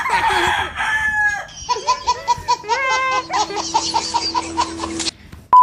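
Laughter, then a chicken clucking and crowing in a quick run of calls that cuts off suddenly about five seconds in.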